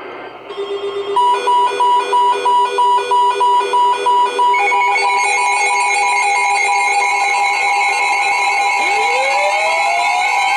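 Electronic alarm-style tones: a low steady tone, then rapid beeping about three beeps a second for a few seconds, giving way to steady higher tones that a rising pitch glide joins near the end.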